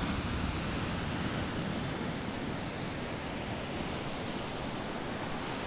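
Sea surf washing against a rocky shore: a steady rush of waves that eases slightly near the end.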